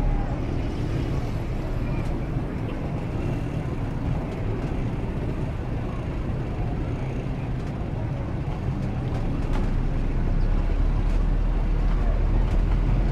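Steady road and traffic noise from a car driving along a city street, with a low rumble that eases about when the sound begins and builds again near the end.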